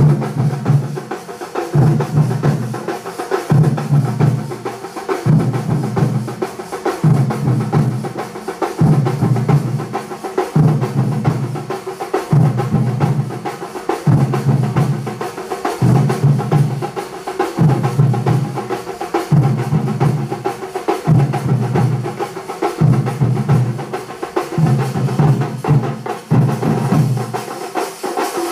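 Kerala thambolam street percussion band, many drummers with slung drums, playing together in a steady repeating rhythm. A deep pattern comes round about every two seconds under dense continuous drumming.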